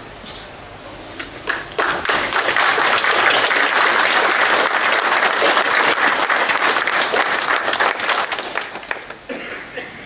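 A large congregation applauding. The clapping starts about two seconds in, holds steady, and dies away near the end.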